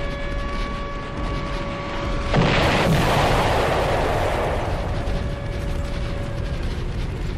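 An alarm sounding a steady tone, then, about two and a half seconds in, a sudden loud explosion that rumbles and dies away over a few seconds, with the alarm tone still faintly under it.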